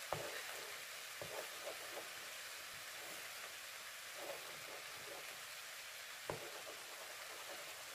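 Beaten egg sizzling faintly as it scrambles in a nonstick wok of fried rice: a steady hiss, with a few soft knocks of a wooden spatula against the pan as it is stirred.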